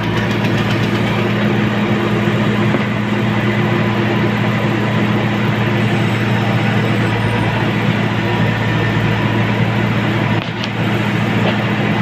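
Diesel engine of an L&T-Case backhoe loader running steadily under hydraulic load, heard from inside the cab as the boom swings from the trolley back to the trench. It dips briefly about ten seconds in.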